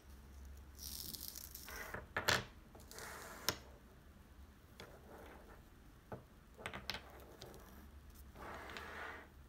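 Wooden lacing beads being threaded onto a cord and set down on a hard surface: rustling of handling, two sharp clicks a couple of seconds in, then several lighter clicks and knocks of the beads against each other and the surface.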